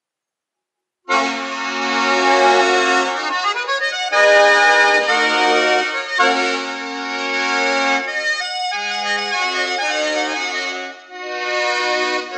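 Accordion music starting about a second in, playing sustained chords in short phrases as the opening of a song.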